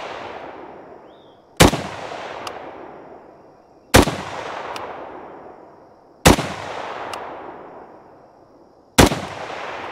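Four single shots from an FN FAL .308 battle rifle, fired in slow aimed succession a little over two seconds apart. Each sharp report is followed by a long echo that dies away before the next shot.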